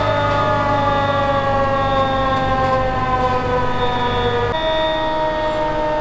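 Fire engine's siren sounding on a code 3 response, a wail falling slowly in pitch over several seconds, over the truck's low engine hum. It breaks off abruptly about four and a half seconds in and carries on from a slightly higher pitch, still falling.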